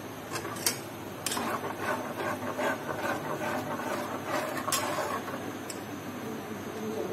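Steel ladle stirring and scraping thick gram-flour batter around a nonstick pot, with a few sharp clinks of the ladle against the pot.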